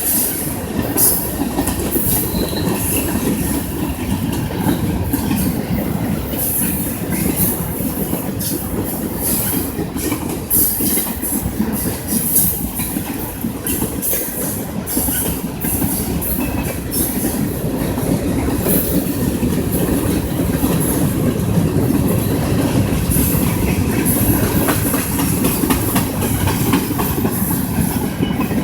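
Union Pacific manifest freight train rolling past at speed: a steady, loud rumble of freight cars on the rails, with a quick, irregular clicking of wheels over the rail joints.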